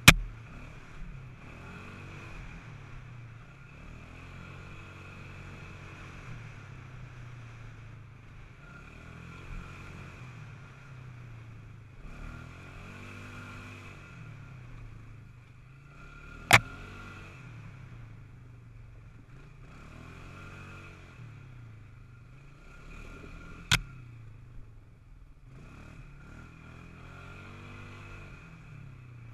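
Polaris Scrambler 500 4x4 H.O. quad's single-cylinder engine running under way, its pitch rising and falling as the throttle opens and closes. Three sharp knocks come through: one right at the start, the loudest, then two more about two-thirds of the way in.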